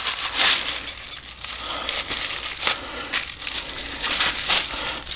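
Plastic bubble wrap crinkling and rustling in irregular flurries as it is handled and pulled off a part by hand.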